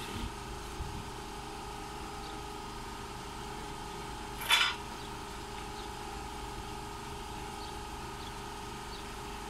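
A motor running with a steady hum, broken about four and a half seconds in by one short, loud hiss.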